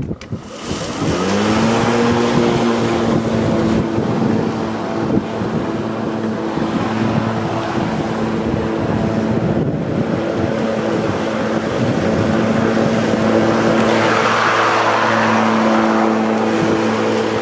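Cordless battery lawnmower (Mountfield MC380 Li) starting up: its electric motor and blade spin up with a short rising whine about a second in, then run at a steady pitched hum while cutting grass. Wind noise on the microphone.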